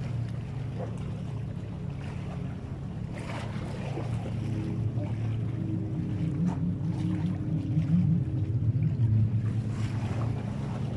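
A boat engine's low steady hum carries over open sea, with wind on the microphone. The hum swells and throbs in the second half.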